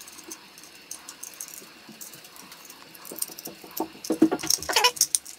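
Light clicks, taps and rattling of a wire being fed into the screw terminal of a plastic smart inline switch, with a screwdriver handled against the housing. The clicks come faster and louder about four seconds in.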